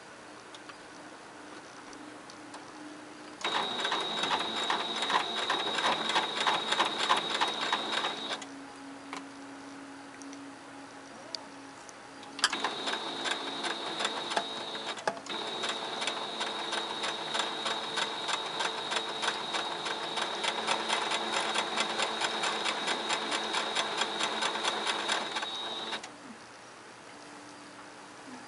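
White electronic Singer sewing machine stitching in two runs, a short one starting about three seconds in and a longer one starting about twelve seconds in: a rapid, even needle clatter over a steady high motor whine, with a brief hitch early in the second run. A faint low hum comes between the runs.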